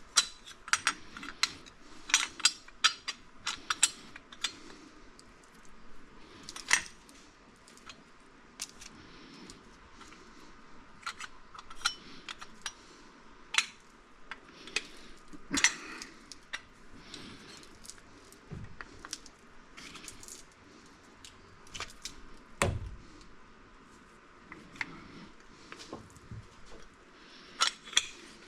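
Scattered light metallic clinks and clicks of plumbing fittings and hand tools being handled, busiest in the first few seconds and again near the end, with one dull thump about two-thirds of the way through.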